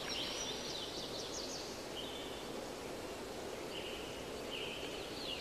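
Birds singing, with quick high chirps and short whistles in the first two seconds and again near the end, over a steady rush of flowing stream water.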